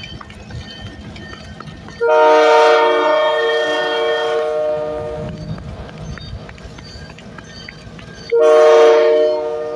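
Diesel locomotive air horn, a Grand Elk Railroad EMD GP40-2W's, sounding several notes at once. A long blast of about three seconds is followed about three seconds later by a second blast that begins near the end. Under the horn is the low rumble of the train.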